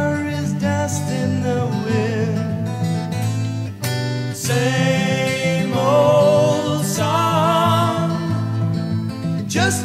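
Background music: a song with guitar and a singing voice holding long wavering notes.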